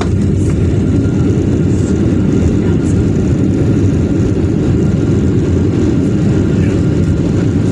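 Boeing 737 airliner's cabin noise during the landing rollout: a loud, steady low rumble of the jet engines and the wheels on the runway, heard through the cabin.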